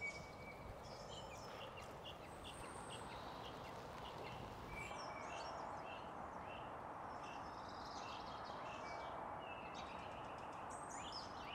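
Small birds chirping and tweeting in short repeated calls over a faint, steady outdoor background hiss.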